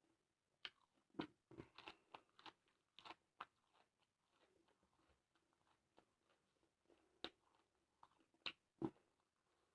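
Close-up chewing and biting of crisp raw vegetables, with a quick run of crunches in the first few seconds, a pause, then a few single crunches near the end.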